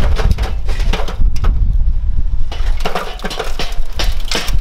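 Lit charcoal poured from a metal chimney starter into a kettle barbecue, the lumps clattering and crackling as they tumble onto the grate in several bursts.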